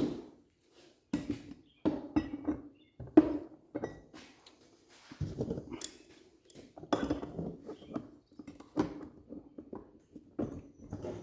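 Irregular clinks and knocks of hard parts being handled as the surface cleaner's spray bar is set back on over the new swivel, a dozen or so separate hits with short rings.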